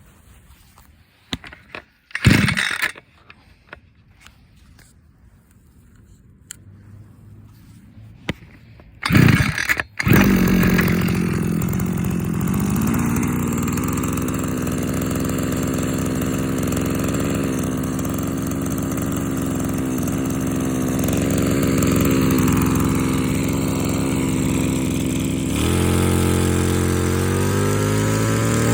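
Komatsu Zenoah BC2211EZ brush cutter's small two-stroke engine being pull-started: two sharp recoil pulls, the second about nine seconds in, after which the engine catches and idles steadily. Near the end it is throttled up, the pitch rising.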